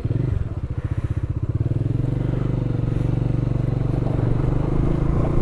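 Bajaj Dominar 400's single-cylinder engine running as the motorcycle pulls away and rides off on a loose gravel track, with a steady pulsing exhaust beat.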